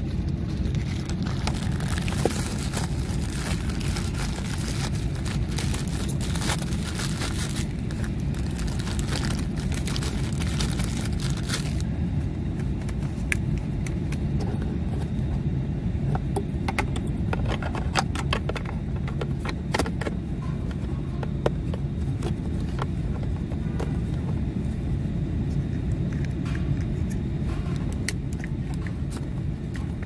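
Plastic clicks, taps and rustling as a USB/auxiliary audio receptacle module and its wiring-harness connector are handled close by, over a steady low rumble.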